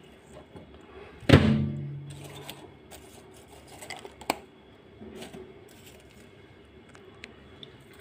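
A sharp knock about a second in, then faint rustling and light clicks as plastic cling film is handled and peeled off a glass bowl of microwaved popcorn.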